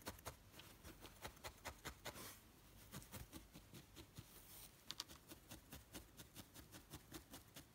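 Felting needle stabbing repeatedly into carded wool: faint, rhythmic soft pokes, about four a second.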